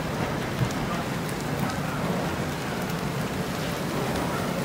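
Pad thai, rice noodles, bean sprouts and egg, sizzling steadily in a steel wok over a gas burner.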